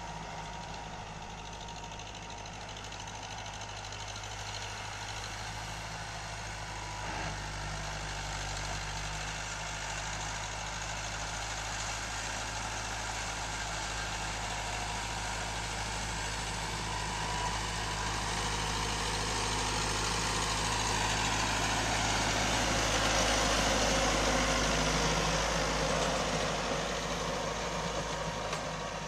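Diesel farm tractor engine running steadily under load while its rotary tiller churns the soil. The sound grows louder as the tractor comes closer, loudest a little over 20 seconds in.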